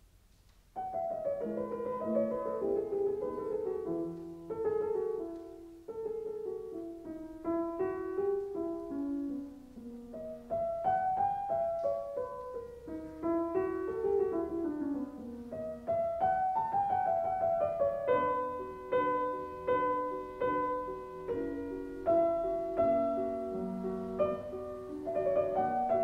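Background piano music, starting suddenly about a second in, with a flowing melody of quick runs of notes.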